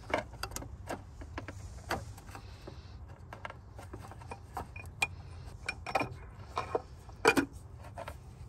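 Light, irregular clicks and knocks as a cartridge oil filter in its plastic housing cap is fitted back into the engine's filter housing by hand, over a faint steady low hum.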